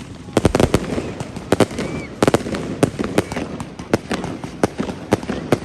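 Fireworks exploding in rapid, irregular succession: a string of sharp bangs and crackles, the loudest about half a second in and again a little past two seconds, with a faint whistling rocket rising in between.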